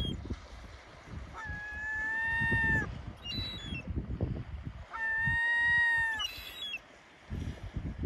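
Gulls calling: two long, level, drawn-out calls of about a second and a half each, with short sharp cries between and after them, over wind rumbling on the microphone.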